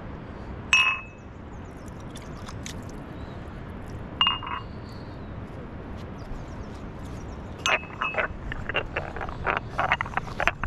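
Glass tea mugs clinking as they are handled and washed: two sharp clinks, each ringing briefly, then a quick run of small knocks and rattles near the end as the glasses are rinsed and scrubbed.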